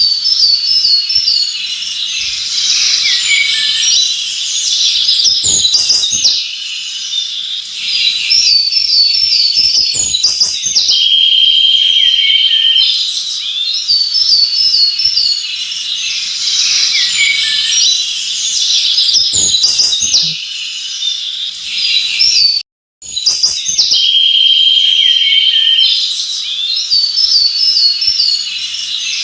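A chorus of songbirds chirping and singing, with short repeated warbled phrases and a steady high trill recurring every several seconds. The sound cuts out completely for a split second about three-quarters of the way through.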